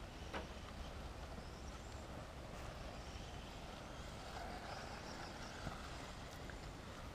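Small radio-controlled rally car driving over a dirt track, its motor giving a faint whine that swells as it passes close about four to five seconds in. There is a sharp tick just after the start.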